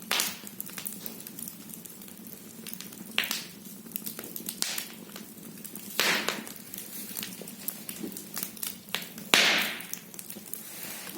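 Firewood burning in a fireplace, crackling with a steady run of small snaps and several louder pops, the loudest near the end.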